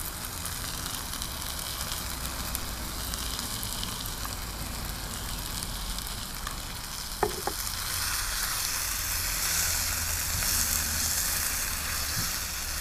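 Chicken frying in oil in a hot pan with red Thai curry paste, a steady sizzle that grows louder about eight seconds in. A single sharp click comes just before, about seven seconds in.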